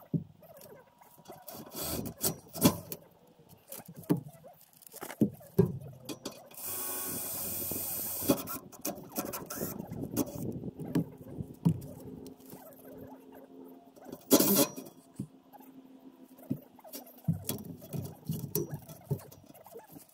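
Crinkling and scraping of plastic ground sheeting with scattered knocks and clicks as PVC drain pipe and fittings are handled. A steady rushing noise lasts about two seconds, and there is one louder crackle about two thirds of the way through.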